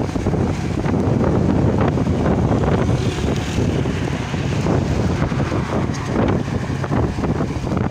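Wind buffeting the microphone of a moving vehicle in gusts, over the steady rumble of road and engine noise.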